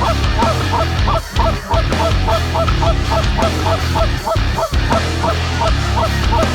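Geese honking in a rapid, fairly even run of short honks, about three or four a second, over a steady low background.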